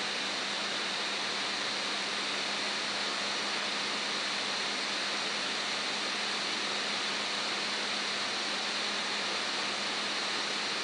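Steady hiss of the recording's background noise, with a faint low hum underneath.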